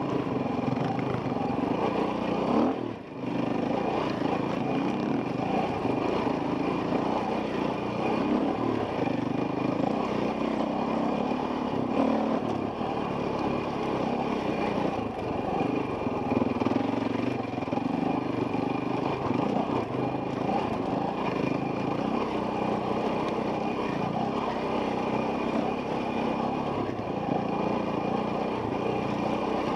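Off-road motorcycle engine running under varying throttle, heard from the rider's helmet camera, with one short drop in loudness about three seconds in.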